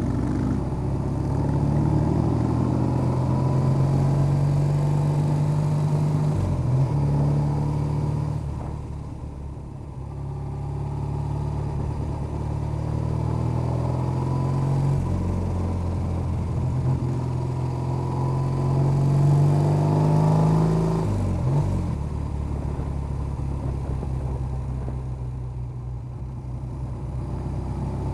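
Motorcycle engine running under way, recorded on board the bike, with a steady engine note broken by several gear changes and easing off for a moment about eight to ten seconds in.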